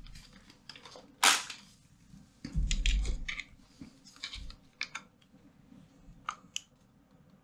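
Scattered clicks and taps of a computer mouse and keyboard: a louder knock about a second in, a short rustle, then several single sharp clicks.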